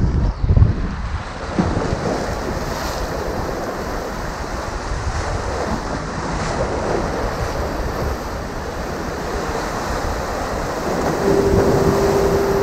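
Surf washing and splashing against the jetty's rocks, with wind buffeting the microphone. Near the end a steady tone sounds for about two seconds.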